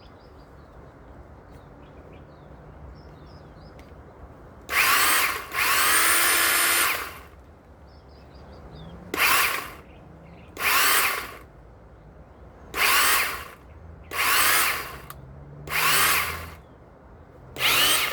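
A 1000 W rear-motor electric pole saw run with no load in short trigger bursts, its chain spinning freely for a test spin before any cutting. The bursts begin about four and a half seconds in, about eight of them, each spinning up with a rising whine and cutting off after a second or so.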